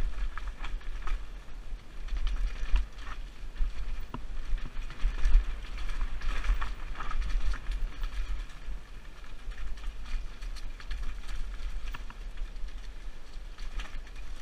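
Mountain bike rattling over a rough, rocky dirt singletrack on a descent: irregular clicks and knocks from the bike and tyres on stones, over a constant deep rumble of wind buffeting the helmet-mounted microphone.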